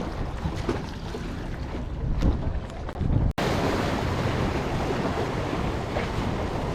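Wind buffeting the microphone over choppy lake water lapping at the shore, a steady rumbling hiss. It drops out for an instant a little over three seconds in, then comes back brighter.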